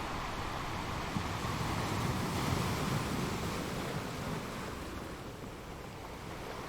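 Ocean waves: a steady rush of surf that swells about two to three seconds in and eases off again after four.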